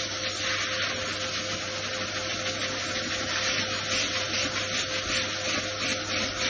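High-velocity pet dryer blowing air through its hose to blast water out of a wet dog's coat: a steady rushing hiss over a constant motor hum.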